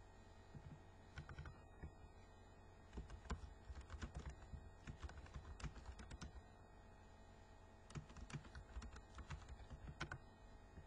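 Faint typing on a computer keyboard in runs of keystrokes: a few about a second in, a long run from about three to six seconds, and another from about eight to ten seconds. A low steady hum lies underneath.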